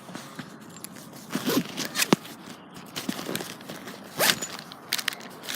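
Rustling and handling noises, with a sharp click about two seconds in and a louder rustle about four seconds in.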